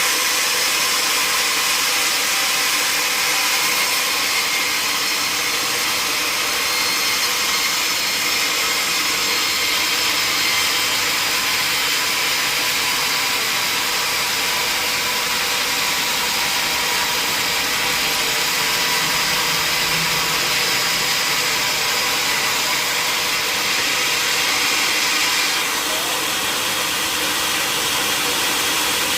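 Sawmill saw running steadily, a loud even hiss and whine of machinery working the redwood; the high hiss drops slightly near the end.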